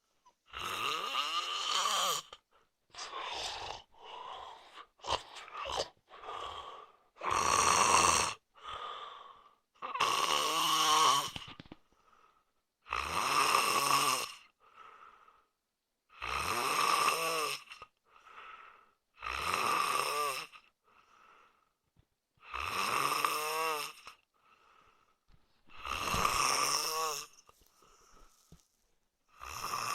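A man snoring in sleep: loud, rasping snores about every three seconds, about ten in all, with a quieter breath between them.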